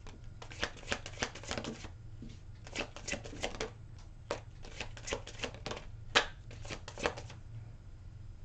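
Arcanum tarot deck being shuffled by hand: four short runs of rapid card clicks and flicks with brief pauses between them, stopping about seven seconds in.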